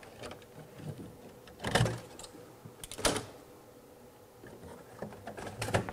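Clunks and scraping from a screwdriver and hands working inside a Qidi Q1 Pro 3D printer's enclosure while its shipping screws are taken out. A few short bursts come about two, three and five and a half seconds in.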